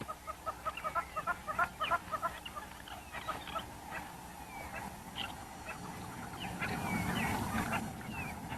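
Spotted hyenas giggling: a fast run of short, high staccato notes, then scattered squeals and whoops. A louder low rumble comes about six and a half seconds in.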